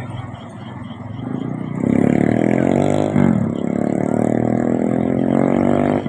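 A motor vehicle's engine accelerating close by. It rises in pitch from about two seconds in, drops briefly after three seconds as it changes gear, then climbs and holds.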